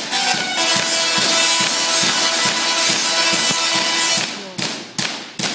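Singing Tesla coils' sparks buzzing out a tune with a beat, which ends about four seconds in. Three sharp spark cracks follow near the end.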